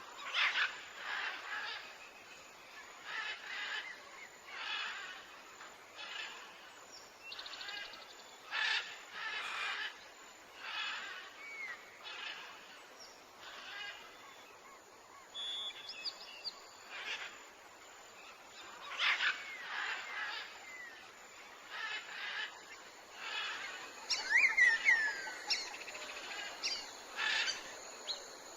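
Wild birds calling: short noisy calls repeat every one to two seconds, with a few clear, falling whistled chirps near the end.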